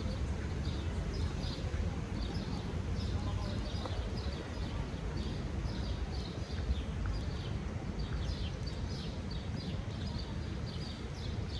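Sunny city-park ambience: a steady low rumble of distant traffic under short, high chirps from the trees, repeating a few times a second.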